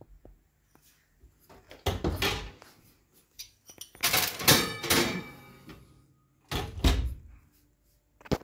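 Ignis kitchen oven door swung open with a thump, then a metallic clatter with ringing as the hardened steel jig parts are laid on the baking tray, and the door shut with a heavier thump near the end. The parts are being loaded for tempering.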